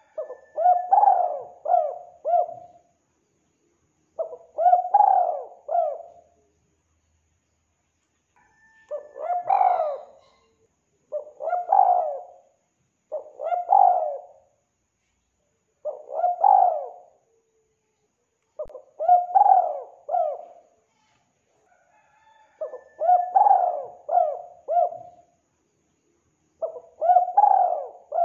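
Spotted dove cooing: about nine short phrases of three or four rolling coos each, repeated every two to four seconds with silence in between.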